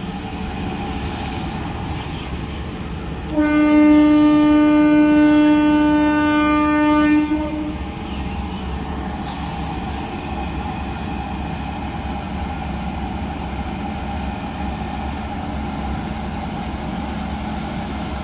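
WAP7 electric locomotive sounding one long horn blast of about four seconds on a single steady pitch, starting about three seconds in. Under it and after it, the steady hum and rumble of the locomotive and train rolling slowly.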